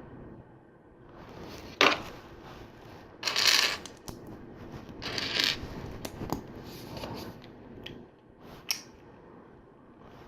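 Plastic LEGO bricks being handled: sharp clicks as pieces snap together, about two seconds in and again near the end, with short bursts of loose plastic parts rattling and rustling in between.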